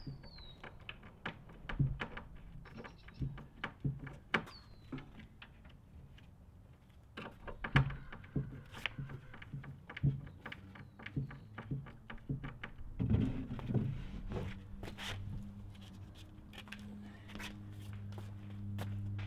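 Irregular taps and knocks from fitting out a flat-pack IKEA Brimnes wardrobe: shelf pegs pushed into the side panels and a shelf handled against the carcass, with the loudest knock about eight seconds in.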